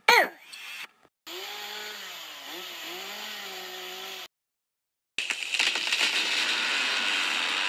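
Cartoon sound effects: a short falling squeal, then a chainsaw running for about three seconds with its pitch wavering up and down, as for beavers cutting through a tree. After a short silence comes a louder, steady rushing hiss.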